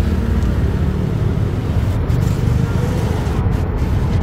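Steady low rumble of engine and road noise from a moving vehicle, heard from on board.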